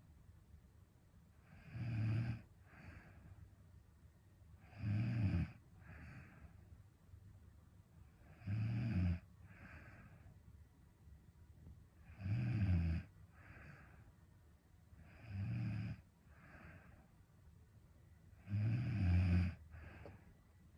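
A young woman snoring in her sleep: six rough snores, about one every three and a half seconds, each followed by a softer breath.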